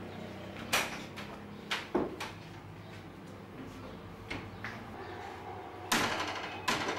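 A handful of sharp knocks or clacks over a low, steady hum; the loudest come about a second in and near the end.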